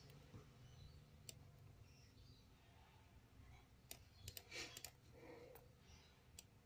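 Faint, scattered clicks of a laptop's keys and touchpad, a handful over several seconds with a short cluster about four seconds in, against near silence.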